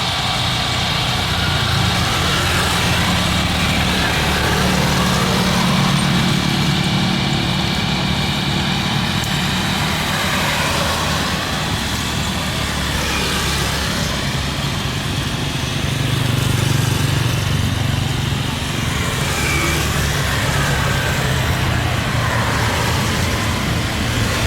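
Steady, loud engine noise with a low hum, like jet airliner engines on or near the runway.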